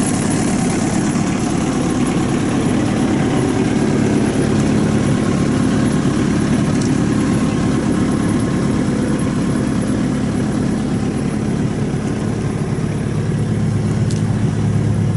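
Kubota four-cylinder diesel engine of a Bobcat E26 mini excavator idling steadily.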